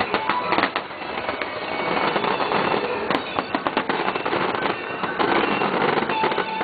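Aerial fireworks display: a dense, continuous crackle of many small bursts and pops.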